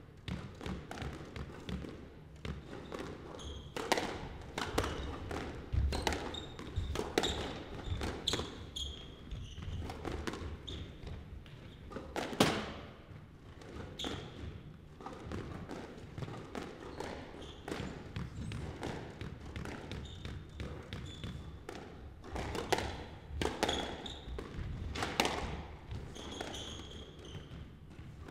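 Squash rally: an irregular run of sharp hits as the ball is struck by racquets and slaps off the court walls and floor, with short high squeaks from the players' shoes on the hardwood floor.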